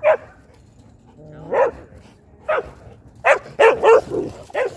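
A dog barking in short single barks, about seven, spaced unevenly and coming faster after about three seconds. It is play barking while dogs run together along a fence, not aggression, as its owner says.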